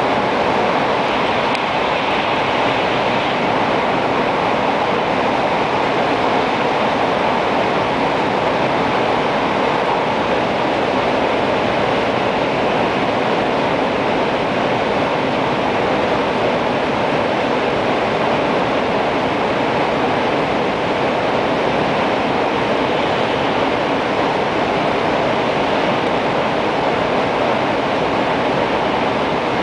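Steady running noise inside an N700 series 8000 Shinkansen car, an even rush of air and rolling noise with no change in level.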